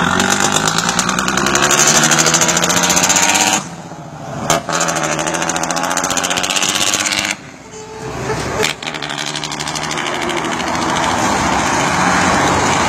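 Heavy truck's diesel engine running loud under load, its pitch shifting as it pulls. The sound drops away sharply twice, about three and a half and seven and a half seconds in, each time with a short click, then builds up again, as at gear changes.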